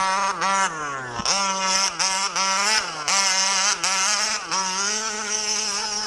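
Small two-stroke petrol engine of an MCD 1/5-scale RC car being revved on and off as it is driven: a buzzing whine whose pitch climbs and drops every second or so, with one deep drop about a second in.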